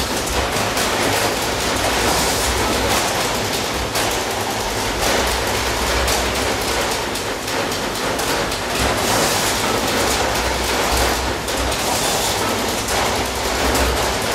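Automated chequebook production line running: a dense, steady mechanical clatter with a low hum underneath.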